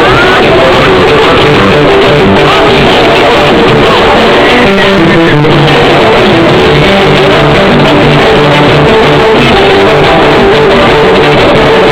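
Loud music played through a car's trunk sound system, so loud that the recording sits near full level throughout.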